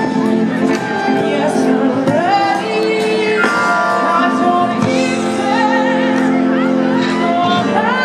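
Big band playing live, heard from the audience: full sustained chords with a high melody line that glides and wavers over them.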